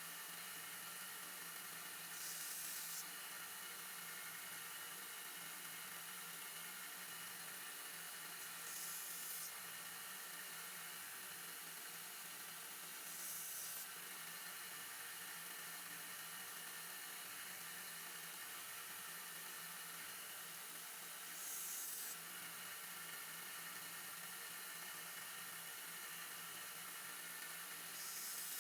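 1x30 belt sander running steadily, with short grinding hisses, five in all, as the small blade of a pocket knife is touched to the belt to grind a new point on it.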